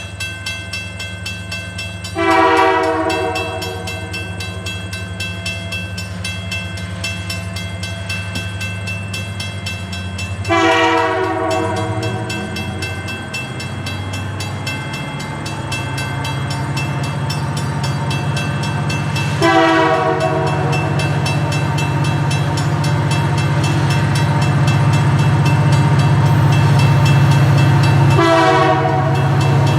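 Approaching train with its horn sounding four short blasts, about nine seconds apart, over the steady, steadily louder run of the locomotive engine.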